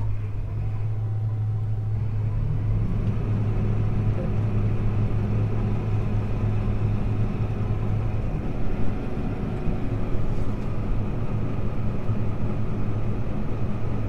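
Combine harvester running from inside the cab: a steady engine drone that grows louder and fuller about two and a half seconds in as the threshing and cleaning system runs. It is running empty with the sieves shut to blow chunks of ice out of a partly thawed cleaning shoe.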